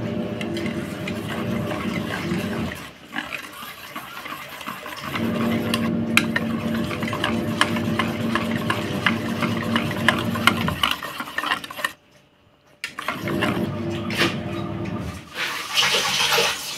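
Wire whisk beating thick batter in a stainless-steel bowl: wet slapping with rapid small clicks of the wires against the bowl. A steady hum underneath drops out twice.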